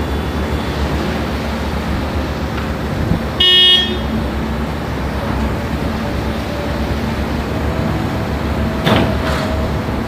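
Concrete mixer truck and trailer concrete pump running with a steady low drone. A short horn honk comes about three and a half seconds in, and two knocks near the end.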